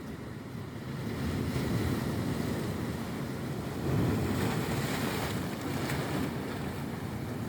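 Sea waves washing and surging against a rocky shore, swelling twice, with wind buffeting the microphone.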